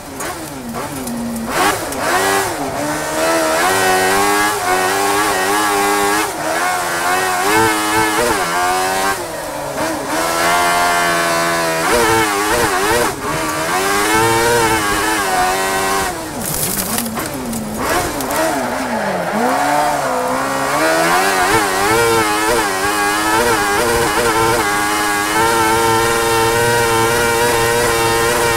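Speedcar Xtreme racing car's high-revving engine heard from inside the cockpit, climbing in pitch under full throttle and dropping sharply at each gear change or lift, several times over, with a steady hiss of wind and tyres beneath.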